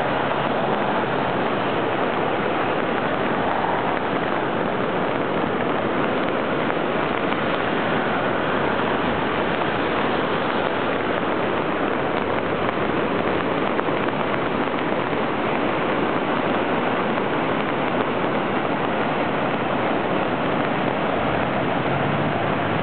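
Steady rushing noise of fast, churning storm runoff in a rock-lined flood-control wash, mixed with the hiss of cars passing on the rain-soaked street.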